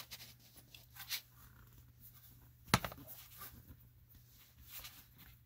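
Hand spinning a new Wix oil filter onto its threaded mount on the engine: faint scraping and rubbing of skin on the metal canister, with one sharp knock a little under three seconds in.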